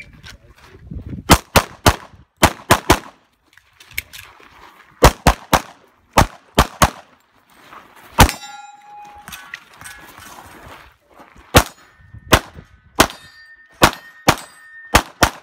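A single-stack semi-automatic pistol fired rapidly, about twenty shots in quick pairs and short strings with a pause of a couple of seconds in the middle. Some shots are followed by a lingering metallic ring.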